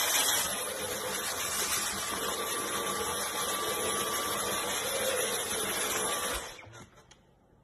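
Cordless stick vacuum cleaner running steadily with a high hiss and a faint steady whine, then cutting off about six seconds in.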